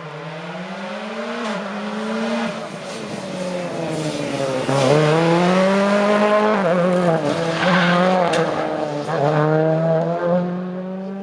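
Rally car engine at full throttle, its note climbing and dropping several times as the driver lifts off and accelerates again, growing louder over the first five seconds as the car approaches and staying loud.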